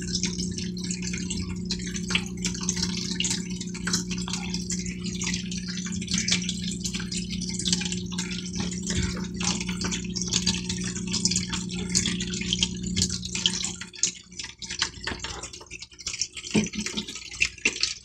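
A small water pump hums steadily while water trickles and drips with many small splashes. The hum cuts out about fourteen seconds in, leaving only irregular drips.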